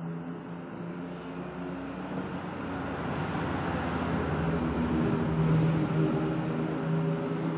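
A motor vehicle passing in the street, its engine and road noise building to its loudest about five or six seconds in.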